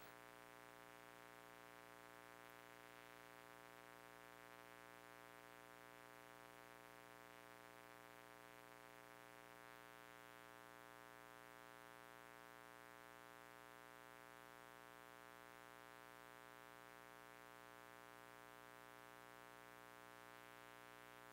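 Near silence: a faint, steady hum with many overtones, unchanging throughout.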